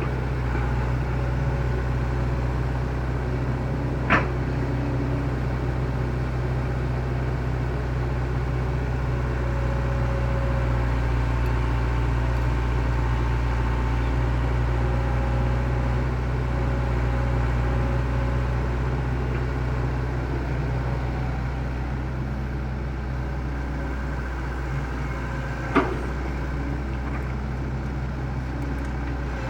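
Excavator's diesel engine running steadily, with two sharp clicks, one about four seconds in and one near the end.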